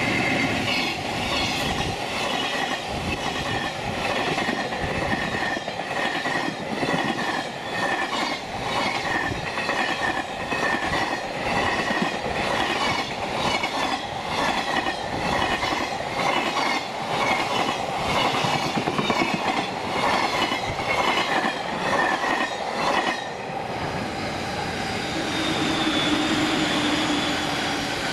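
A train passing close by on the Tokaido Line, its wheels clattering over the rail joints in a steady rhythm for about 23 seconds. The clatter then stops and a steadier rumble with a faint tone carries on to the end.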